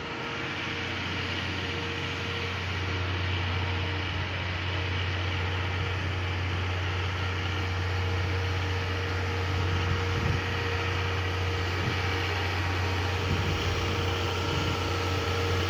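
Diesel engine of a standing trolley train idling: a steady low hum with a faint steady tone above it, growing slightly louder.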